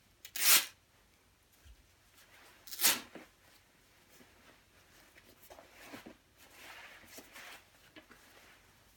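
Fabric of a quilted down jacket being torn by hand: two short, loud rips, about half a second in and again just before three seconds, followed by softer rustling and crinkling of the fabric.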